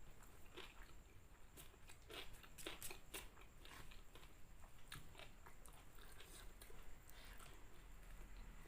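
Faint, irregular crunching and chewing of crispy fried chicken, close to the microphone.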